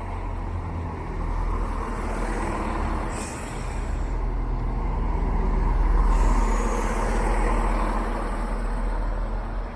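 Class 170 Turbostar diesel multiple unit pulling away under power, its diesel engines making a low drone that swells to its loudest about six seconds in.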